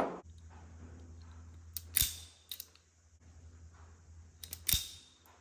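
Sharp snips of a hand tool cutting electrical cord while it is prepared for wiring. The snips come singly and in small groups, the loudest about two seconds in and near the end, over a faint steady low hum.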